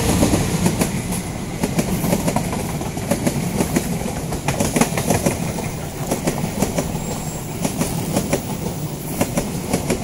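Dry grass and leaves rustling and crackling right against the microphone, with handling rumble, as the phone is pushed through the vegetation around a ground nest. The crackles come irregularly throughout.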